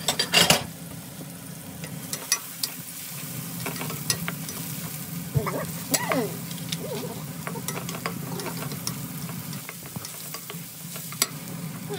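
Chopped garlic and onion sizzling in oil in a nonstick wok while a wooden spatula stirs them, with sharp clicks and scrapes of the spatula against the pan, loudest about half a second in.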